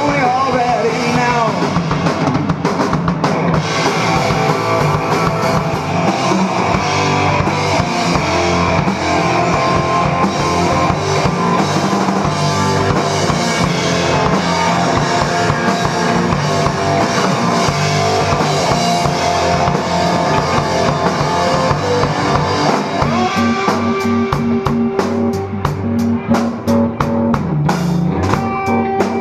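Live rock band playing: distorted electric guitar, electric bass and a Pearl drum kit together. About 23 seconds in the playing thins to a sparser part carried by evenly spaced drum strokes under bass and guitar.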